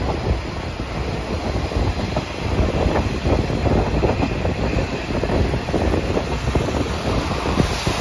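Train running along the track, heard from an open-air carriage: a steady rumble of wheels on rails with frequent irregular clacks and knocks.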